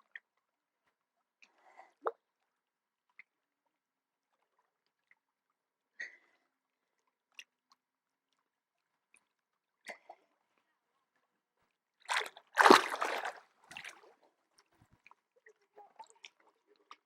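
A single splash into lake water about twelve seconds in, likely a person jumping in, lasting about a second with some sloshing after it; the rest is near silence with a few faint clicks.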